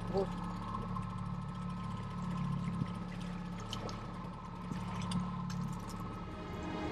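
Boat's outboard motor running steadily at trolling speed, with a few faint ticks over it.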